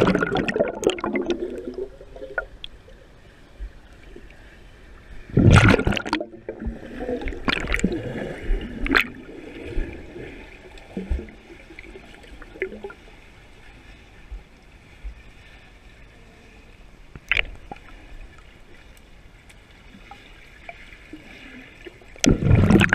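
Muffled water churning and bubbling, heard through an underwater camera housing as swimmers' freestyle strokes and kicks pass close by. It comes in loud surges near the start, about five seconds in and again near the end, with a few shorter splashes and quieter stretches in between.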